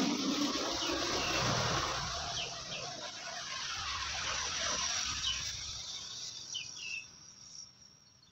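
Birds chirping in short, high calls, heard a few times over a steady rushing noise that fades out about six seconds in.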